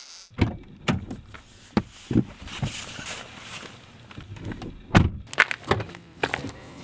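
A string of short thuds, knocks and clicks from footsteps and a car door being opened and shut, the loudest knock about five seconds in.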